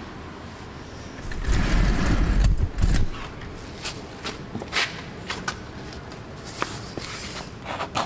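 Handling noises while a wheel is being fitted: a low rumble lasting about two seconds, then scattered light clicks and scrapes.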